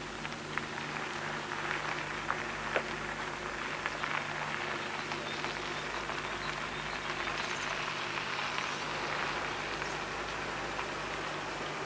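Touring coach's engine and tyres as it drives slowly toward the camera, growing gradually louder, with a few sharp clicks in the first few seconds.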